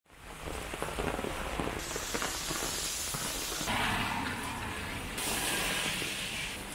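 Steady rain hissing on a wet street, fading in at the start; the hiss shifts abruptly in tone a few times.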